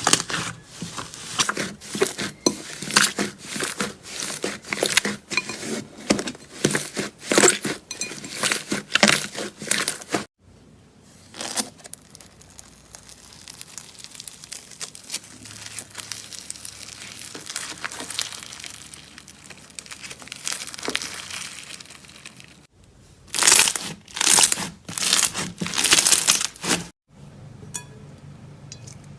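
Slime being squeezed and pressed, giving dense crackling and popping clicks, with a softer, quieter stretch of squishing in the middle and abrupt changes where one clip cuts to the next.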